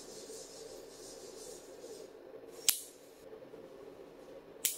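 Two sharp clicks about two seconds apart: a rocker switch being flipped by thumb, with the 12 V automotive relay it drives snapping its contacts over each time.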